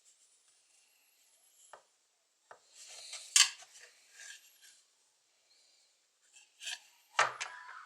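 A few short scraping strokes of a kitchen knife's blade, two bursts of scraping, each with a sharp click.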